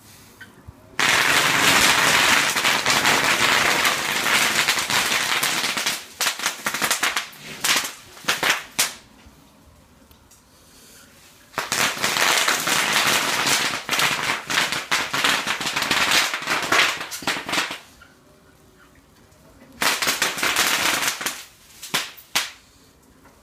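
Bubble wrap popping in rapid fire under the wheels of a roughly 300-pound electric wheelchair, a dense crackle like firecrackers or a machine gun. It comes in three long runs, each thinning to scattered single pops before it stops.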